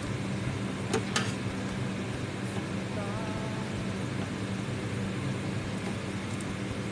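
Two sharp clinks of a metal ladle against a ceramic pot about a second in, over a steady low hum.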